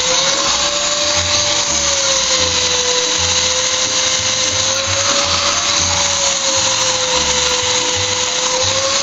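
Hand-held electric polisher running a diamond pad over a terrazzo floor: a steady motor whine over the hiss of the pad on the stone, its pitch wavering slightly as the load changes. It starts abruptly at the beginning.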